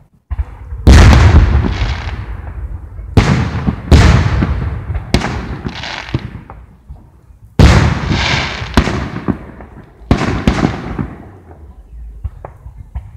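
Aerial firework shells bursting overhead: a series of sudden loud booms, about seven or eight in all, each trailing off in a long rolling echo. The biggest blasts come about a second in, around four seconds in and near eight seconds.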